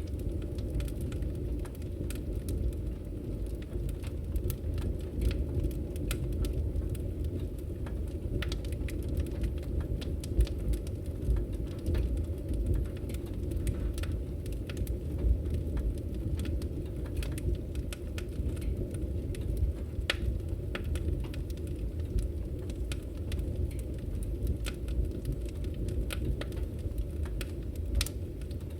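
Wood fire in an open fireplace crackling and popping: a steady low rumble of flame with frequent sharp snaps scattered throughout.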